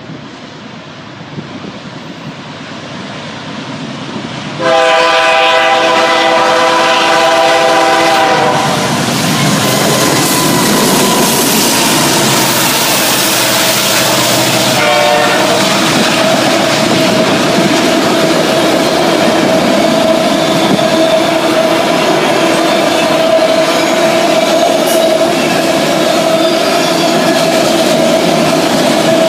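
Canadian National diesel freight train approaching, its rumble growing louder. Its horn then blows one long blast of about four seconds and a short second blast some seconds later. After that the train rolls steadily past, a loud continuous rumble of wheels on rail with a faint held tone.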